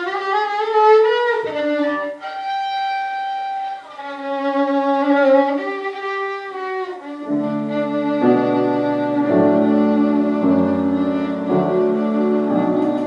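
Violin playing slow, held notes. About seven seconds in, an accompaniment joins with low chords beneath it.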